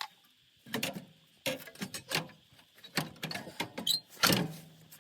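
Irregular metal knocks, clicks and clanks of tools and drivetrain parts being worked loose, with a louder, drawn-out scrape near the end.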